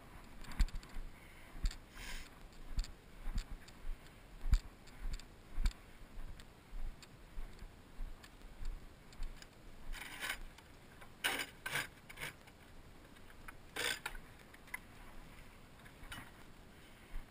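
Footsteps of a person walking with a body-worn camera: dull thumps about two a second, with a few sharper clicks and rattles between about ten and fourteen seconds in.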